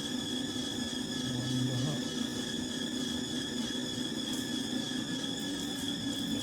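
Split air-conditioner unit running: a steady hum with a constant high-pitched whine.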